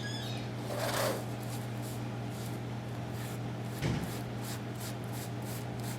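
Handwork on a vinyl tile floor during grouting: a soft rustle about a second in, a single knock near four seconds, then quick repeated rubbing or scraping strokes, over a steady low hum.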